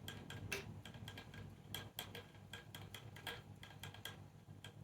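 Faint, irregular light clicks and taps of a clip being handled and slid into place on a Creality Ender 3 S1 Plus 3D printer, over a steady low hum.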